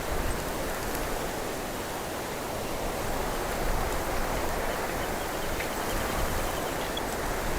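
Wind blowing through a cypress bush's branches: a steady rushing hiss with a low rumble underneath. A few faint, short high bird chirps.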